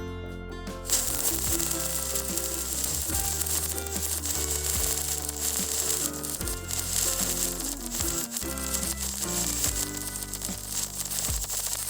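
Electric welding arc crackling and sizzling steadily as a fillet weld is run, starting about a second in, over background guitar music.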